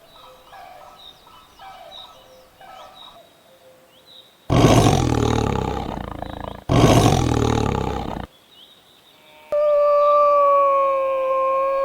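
Faint high chirps, then two loud roars of about two seconds each from a big cat. A long, steady howl begins near the end and drops slightly in pitch as it fades.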